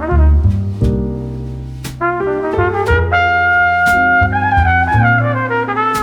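Background instrumental music, with brass melody over a bass line and a steady beat.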